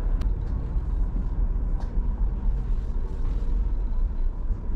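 Steady low rumble inside a ferry, from the ship's engines and ventilation, with a few faint knocks.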